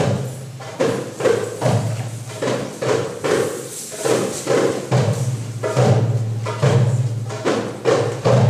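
Live processional drumming: hand percussion struck in a steady beat, a little over two strikes a second, with a low ringing drum tone underneath.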